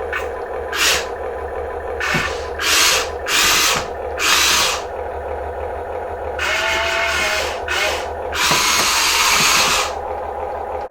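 Small electric motors of radio-controlled construction machines whirring in a string of short bursts, the longest over a second, over a steady low hum.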